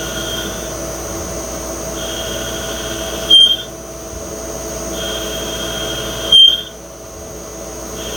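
CNC lathe cutting steel bar stock dry, without coolant, with a steady machine whine. Twice, about three seconds apart, a high squeal from the cutting tool builds over about a second and ends in a short, very loud screech.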